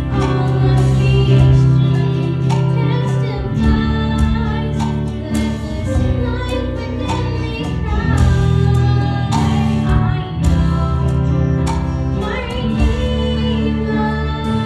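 A girl singing a Christian solo into a microphone, accompanied by a strummed acoustic guitar.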